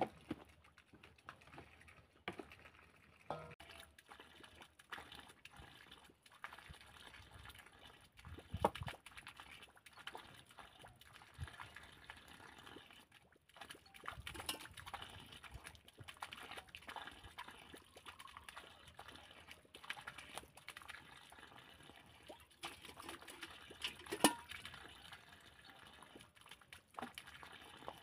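Quiet, scattered clinks and knocks of clay dishes and utensils handled while eating at a table, with two sharper knocks, one about a third of the way in and one a few seconds before the end.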